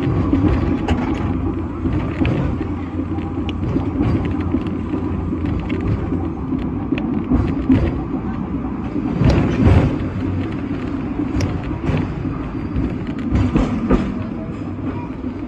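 Sixth-generation teak-bodied Hong Kong double-decker tram running along street track, heard on board: a steady low rumble with scattered clicks and knocks, louder for a moment about nine and a half seconds in.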